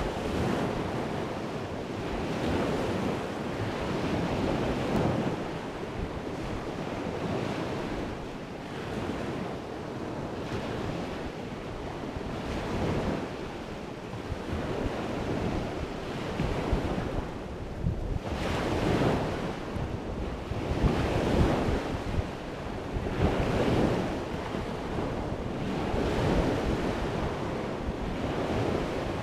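Waves washing onto a beach, the wash swelling and easing every few seconds, with wind blowing across the microphone.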